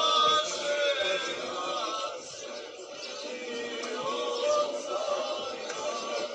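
Music with men singing: several male voices carrying a melody together.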